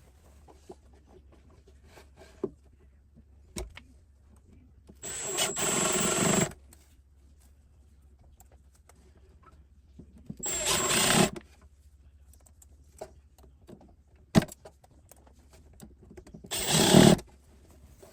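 Power drill/driver run in three short bursts, about five seconds apart, fastening the drawer-box member of a ball-bearing drawer slide. A few light clicks of handling come in between.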